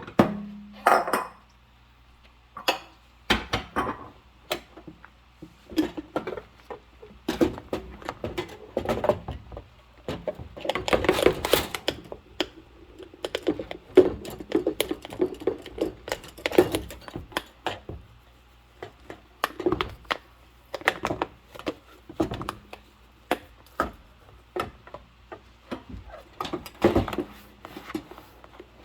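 Dishes and cutlery being washed by hand in rubber gloves: irregular clinks and knocks of dishes against each other, with denser stretches of scrubbing.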